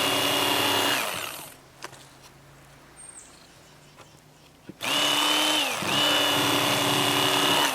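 Electric fillet knife motor running with a steady whine as it skins a fish fillet. It winds down about a second in, starts again about five seconds in, dips briefly under load, then keeps running.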